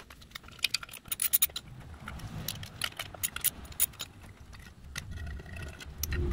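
Metal clinking and scraping of a socket wrench and extension on the steel valve-cover bolts of a Briggs & Stratton single-cylinder engine as the bolts are worked out. There are quick runs of sharp clicks about half a second in and again about two and a half seconds in, and a low rumble near the end.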